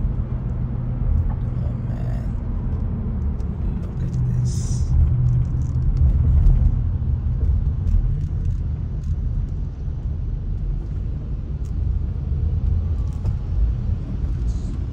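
Low, steady rumble of a car moving slowly in traffic, heard from inside the cabin. A brief hiss comes about four and a half seconds in.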